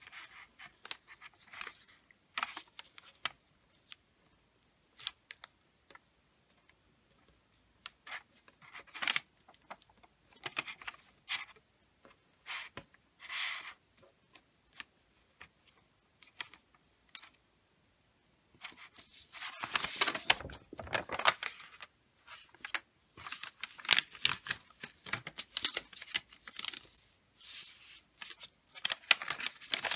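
A sheet of wrapping paper being folded by hand: soft rustles and fingers rubbing along the creases, with a louder burst of crackling paper about two-thirds of the way through as the sheet is handled and turned over, then busier rustling.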